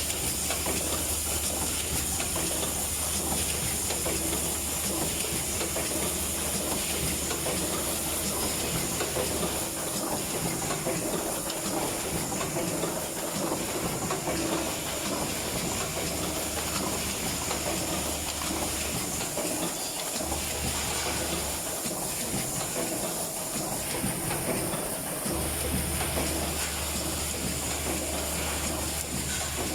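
Automatic spout pouch sealing machine running, a steady hiss of mechanical and air noise. A low hum cuts in and out several times, on for the first ten seconds or so, again for a few seconds in the middle, and again near the end.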